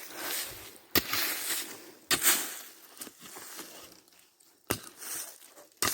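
Digging into earth at an armadillo burrow: four sharp strikes, each followed by a scraping rustle of soil.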